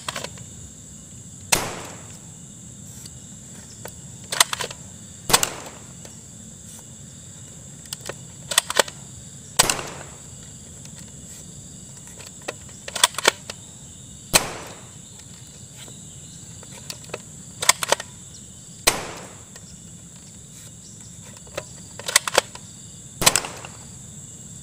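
Toy blaster firing about a dozen single shots, each a sharp snap, spaced a second or more apart. Some shots are followed at once by a second click.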